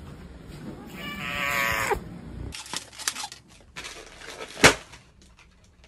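A drawn-out cat meow lasting about a second that drops in pitch at its end. After a break, rustling and handling noise, then one sharp, loud pop about two-thirds through.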